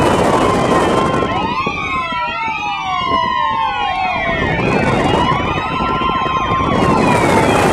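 Tyres of a BMW squealing in rising and falling waves while it is driven hard through autocross cones, with the engine running hard underneath, heard from inside the cabin.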